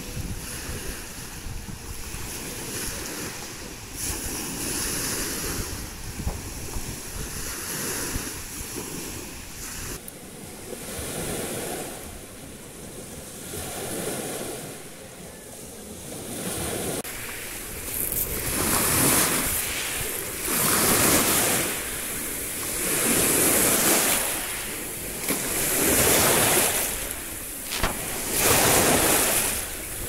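Small sea waves breaking and washing over a pebble beach, with wind buffeting the microphone. About halfway through the waves grow louder, each surge of surf coming in a regular rhythm about every two and a half seconds.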